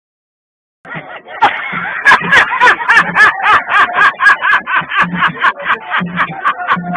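A person's voice in quick rhythmic pulses, about four a second, with bending pitch and sharp clicks, starting abruptly about a second in after dead silence.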